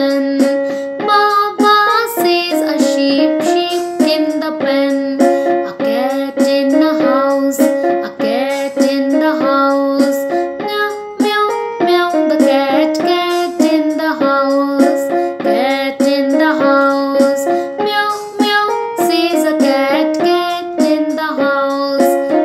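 A woman singing a children's nursery rhyme to a bouncy melody over an instrumental backing track.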